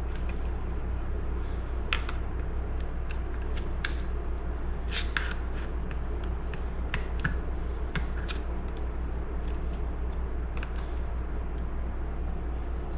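Small metal parts and tools clicking and tapping as the chainsaw's recoil starter mechanism is taken apart by hand, in scattered separate clicks, over a steady low hum.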